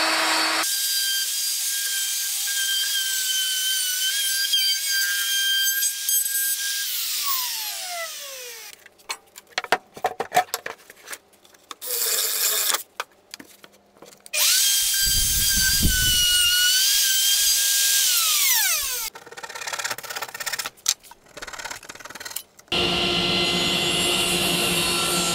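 A handheld router running at high speed, cutting a rabbet along the edge of a plywood panel, its whine winding down around seven seconds in. Clicks and a brief burst of drilling follow, the router whine comes back about fifteen seconds in and winds down again, and near the end a table saw runs as a plywood sheet is fed through it.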